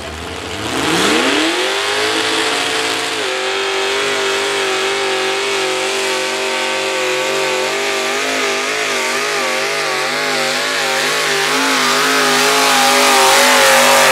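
Pulling tractor's engine revving up hard at launch about a second in, then running at high, steady revs with a wavering pitch as it drags the weight sled down the track. It gets louder near the end as the tractor comes past.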